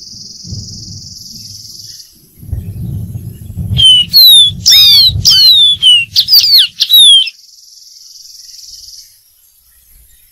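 Dark-throated seedeater singing a quick run of loud, clear whistled notes, mostly falling in pitch, about four seconds in and lasting some three seconds. A low rumbling comes before the song, and a faint steady high-pitched tone and hiss lie under it.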